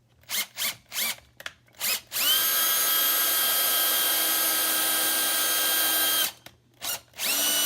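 Power drill boring a small hole through a wooden drawer front, pushed deeper to get the bit all the way through. A few quick trigger spurts come first, then a steady high motor whine for about four seconds. It stops, gives two more short spurts, and starts running again near the end.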